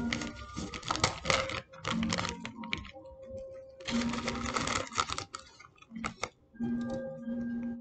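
A small clear plastic bag crinkling in irregular bursts as it is opened and handled, loudest about a second in and again about four seconds in. Soft background music with long held notes plays underneath.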